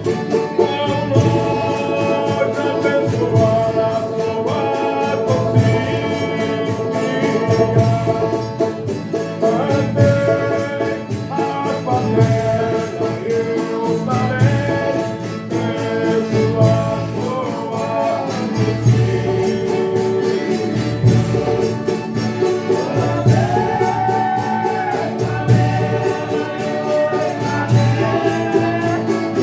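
A Folia de Reis troupe singing in chorus over string instruments and tambourine, with a steady low drum beat about every second and a half.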